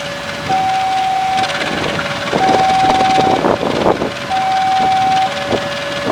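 Railway level-crossing warning alarm sounding a steady alternating two-tone signal, high then low, each tone lasting about a second. Under it is the uneven rumble of a passing train, loudest in the middle.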